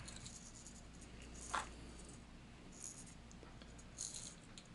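Faint handling sounds of a plastic lipless crankbait with dangling treble hooks being turned over in the hands: one sharp click about a second and a half in, then a couple of fainter ticks and rustles, over a steady low hum.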